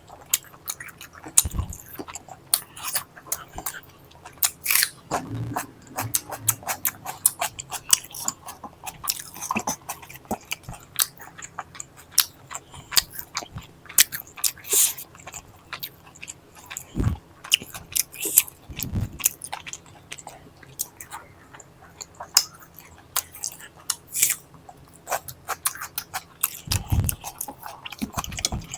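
Close-miked chewing and biting of food: a dense, irregular run of sharp wet mouth clicks and smacks, with a few short low thumps scattered through.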